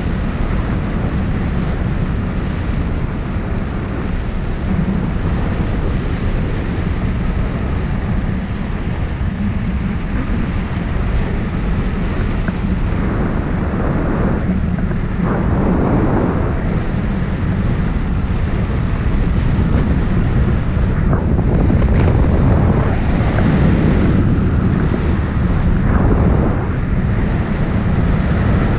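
Airflow buffeting the microphone of a wing-mounted action camera on a hang glider in flight: a loud, steady rush of wind that swells briefly a few times, around the middle and near the end.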